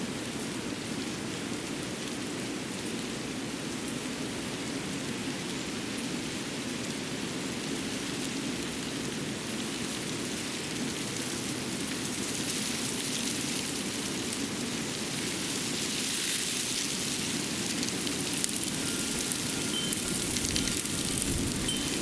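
Steady rushing outdoor winter-forest ambience, an even noise like running water or wind in the trees, growing a little louder and brighter in the second half. Near the end there are scattered faint ticks and a faint thin tone.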